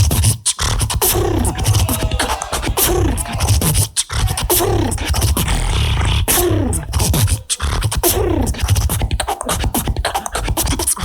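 Live competitive beatboxing into a microphone over a PA. It is a driving beat of heavy vocal bass and sharp snare-like clicks, with a falling pitched vocal tone that recurs every second or two.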